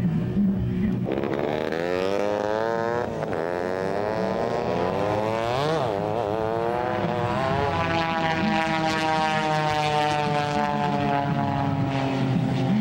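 Pitts S-2S aerobatic biplane's six-cylinder Lycoming engine and propeller at full song overhead. The note swings up and down twice as the plane manoeuvres, then falls slowly and steadily.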